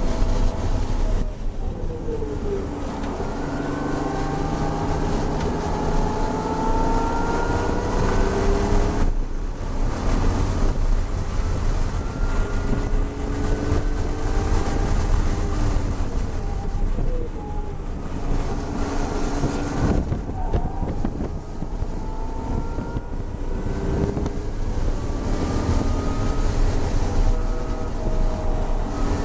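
BMW E36 M3's straight-six engine heard from inside the cabin under hard track driving, its pitch climbing again and again as it revs up and dropping at each shift or lift, over heavy road and wind noise.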